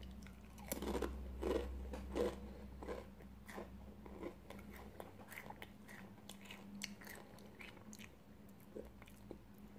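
A Doritos tortilla chip being bitten and chewed with the mouth close to the microphone: a series of crisp crunches, every half second or so at first, growing fainter and sparser after about five seconds.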